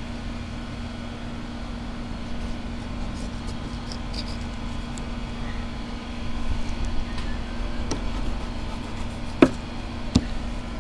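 A steady low mechanical hum, with two sharp knocks under a second apart near the end, from the fillet knife or the cut shark fins striking the plastic cutting board.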